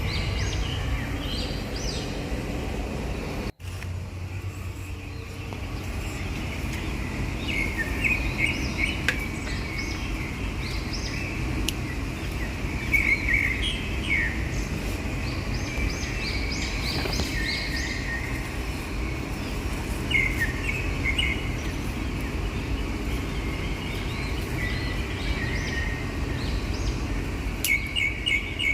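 Small birds chirping again and again over a steady low background rumble of outdoor noise. The sound cuts out for an instant about three and a half seconds in.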